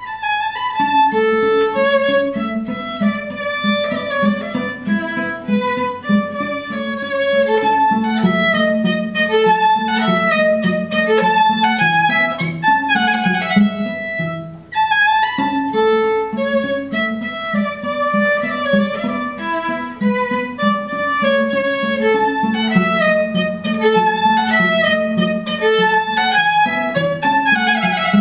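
Violin and cello duet: the violin plays a melody of held and moving notes over a fast, driving cello accompaniment of quick repeated low notes. The music starts right at the beginning and breaks off briefly about halfway through.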